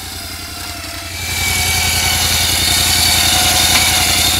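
Side-by-side's engine idling with a steady low pulse. About a second in, a Warn Axon 35 electric winch starts up with a steady whine and gear noise, winding its new wire rope in under tension to stretch it before first use.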